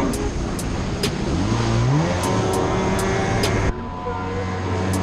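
A jet ski engine running under way, with water rushing along the hull; its pitch rises as it revs up a little over a second in. The sound breaks off abruptly about three-quarters through and resumes at a lower pitch.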